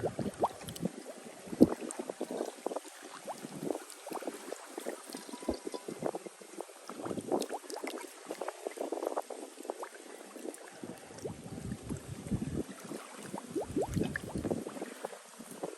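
Seawater bubbling into a one-gallon bottle as it is filled, in irregular glugs, over a faint steady hiss.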